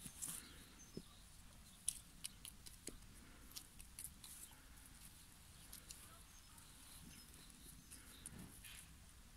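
Faint, irregular clicks and snaps of ostrich and emu beaks pecking at food on the grass.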